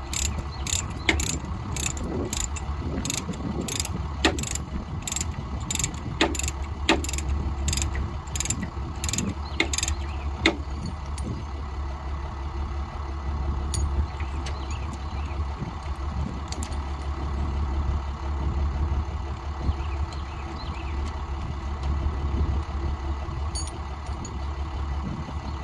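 Ratchet chain binder being worked to slacken a tie-down chain, its pawl clicking in an even rhythm of about two clicks a second for the first ten seconds, then a few scattered clinks of chain and hook. A steady low engine drone runs underneath.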